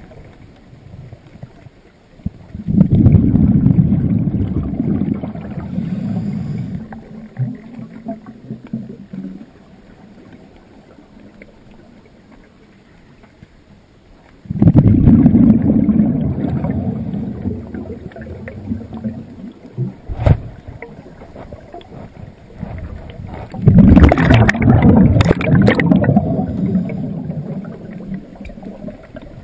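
Scuba diver's regulator exhaust bubbles, heard underwater: three bursts of gurgling bubbles about ten seconds apart, each starting suddenly and fading over several seconds. The stretches between are quieter, one of breaths taken in. A short sharp click comes a little before the third burst.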